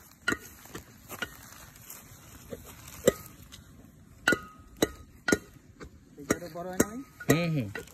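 Scattered sharp knocks and metallic clinks of cooking utensils and pots during camp meal preparation, about eight strikes, several ringing briefly. Near the end a voice calls out briefly, rising then falling in pitch.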